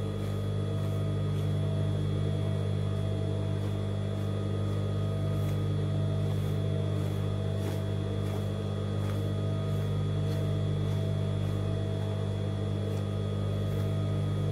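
Steady low electric motor hum with a few constant higher tones. Faint, regular ticks come about twice a second.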